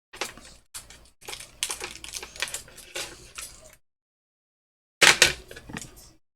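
Rapid small clicks and scrapes of metal hand tools working on a phone logic board, in two bursts, the second one shorter and louder.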